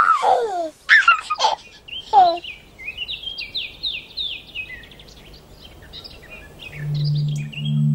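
Birdsong at dawn: several loud falling calls in the first couple of seconds, then a long run of quick, high, repeated chirps. A low steady musical drone comes in near the end.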